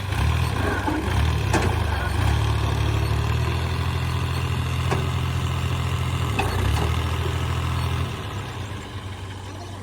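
Diesel engine of a heavy machine running hard, with a few sharp knocks, then dropping back to a quieter, steady run about eight seconds in.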